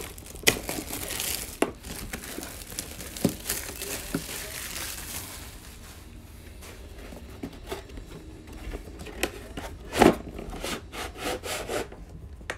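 Plastic shrink-wrap being torn and peeled off a cardboard card box, crinkling for the first five seconds or so. Then comes quieter handling and rubbing of the box as it is taken apart, with one loud knock about ten seconds in.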